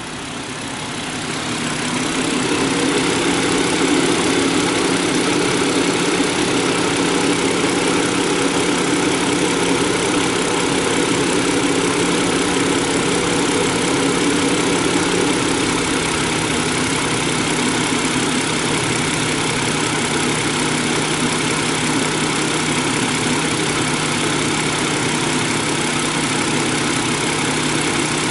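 BMW E60 engine idling fully warm, with its electric radiator fan running, steady after growing louder over the first two seconds. It carries the clicking from the hydraulic lash adjusters (tappets) that is common on the E60 and persists even when warm and on fresh oil.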